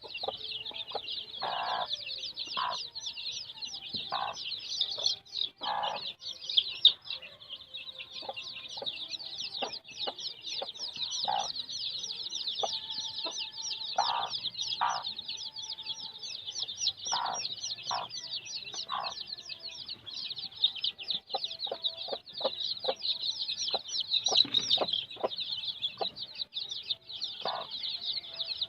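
A brood of kampung chicks peeping continuously in rapid, high-pitched chirps, with short lower clucks from a hen breaking in now and then.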